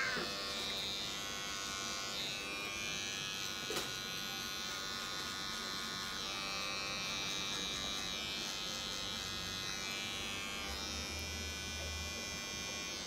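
Small cordless pet clipper buzzing steadily as it trims the fur between a cat's paw pads.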